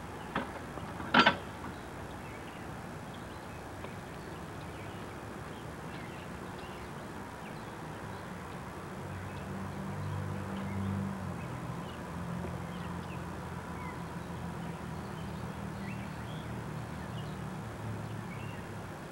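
A sharp metallic clank about a second in as a hand-thrown railroad switch is thrown and its points close. From about halfway in, a low steady engine drone from an approaching train.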